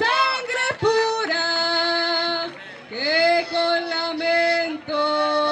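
Live cumbia song: a singer holds long sustained notes, each scooping up into pitch and lasting about a second or more, with short breaks between them.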